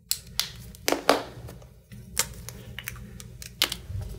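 Felt-tip markers being handled: several sharp plastic clicks as caps are snapped on and pulled off and markers are set down on the table, at irregular intervals.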